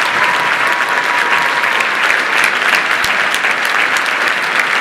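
Theatre audience applauding steadily after a song, a dense, even clatter of many hands clapping.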